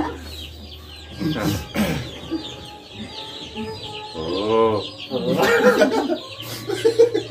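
A group of people laughing, in short uneven bursts of voice with gaps between them.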